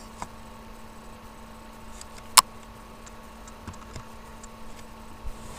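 Steady electrical hum with a few faint ticks, broken by one sharp computer click about two and a half seconds in as the presentation slide is changed.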